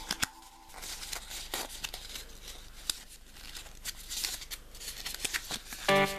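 Foil wrapper of a Kinder Surprise chocolate egg crinkling and crackling as it is peeled off by hand. Background music fades out in the first second and comes back loudly near the end.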